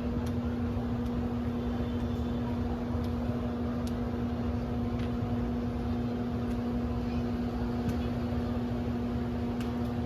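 A steady mechanical hum holding one pitch over a low rumble, with a few faint clicks.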